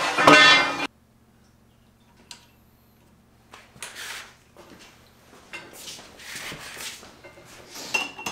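Music ends about a second in. Then aluminum bar stock is slid and handled in a metal-cutting bandsaw's vise, giving light metallic scrapes and clanks, with a ringing metal knock near the end, over a faint steady hum.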